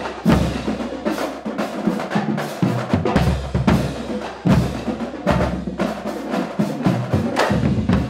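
Marching band drumline playing: rapid snare drum stick strikes over bass drum hits, with low held notes underneath.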